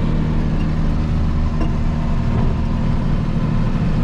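Farm tractor engine running at a steady speed, a constant low drone.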